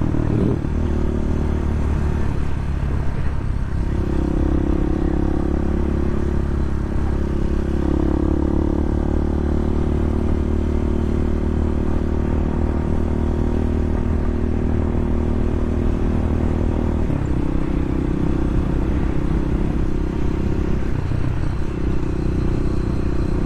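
Bashan 250 dirt bike engine running steadily under the rider, its revs shifting a few times as it climbs a mountain road at slow speed.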